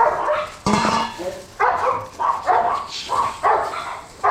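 Dogs barking over and over, about two barks a second, with a knock about half a second in.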